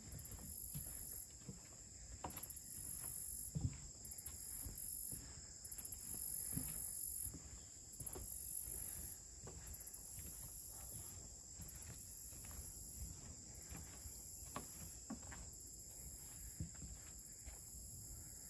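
High-pitched insect chorus buzzing in on-and-off stretches of a second or two, over footsteps on a woodland trail.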